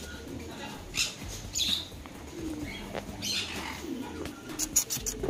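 Birds calling: scattered short high chirps and a few low cooing notes, with a quick run of clicks near the end.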